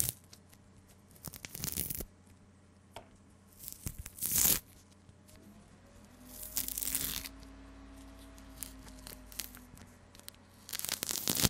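Tangerine peel being torn off by hand close to the microphone, in several short rips a few seconds apart.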